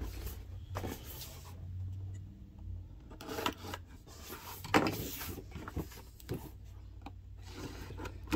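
Cardboard-and-plastic action figure window box being handled and turned: rubbing and scraping of the packaging with scattered light knocks, the sharpest just under five seconds in.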